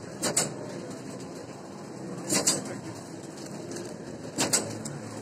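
Horizontal flow-wrap packaging machine running through its cycle: a sharp double clack about every two seconds over a steady mechanical hum.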